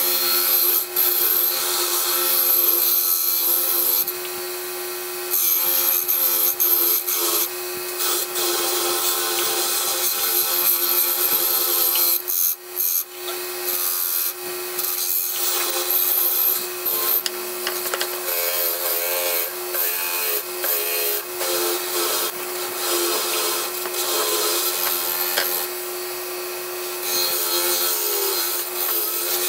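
WEN bench grinder running with a steady hum, its wire wheel scrubbing against steel held to it to brush off rust, a loud hiss that comes and goes as the metal is pressed on and eased off. The steel is the back of an old Disston back saw.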